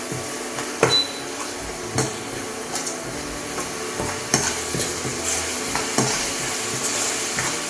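Ginger garlic paste and fried onions sizzling in hot oil in a kadai while a spatula stirs, scraping and knocking against the pan at irregular moments.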